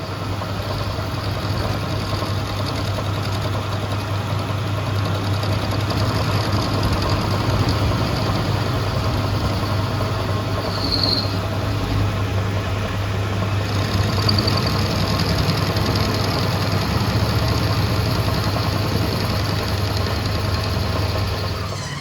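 A machine or engine running steadily with a constant low hum, with a brief high squeak about halfway through.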